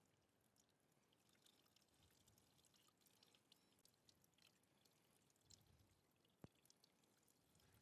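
Faint trickling and dripping of old coolant draining out of the SB300's radiator drain hole with the radiator cap off; one sharp click late on.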